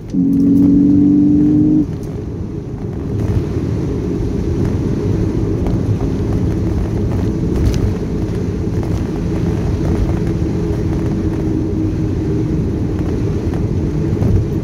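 Cabin sound of a BMW Z4 3.0i on the move on a snowy road: its M54 3.0-litre straight-six running steadily under the rumble of tyres and road noise. For the first two seconds a loud steady low droning chord sits over it, then stops.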